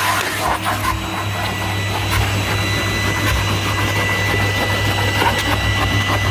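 1991 Numatic Henry vacuum cleaner running steadily, a motor hum with a high whine over it, while its nozzle is worked over the stairs with scattered knocks and rubbing.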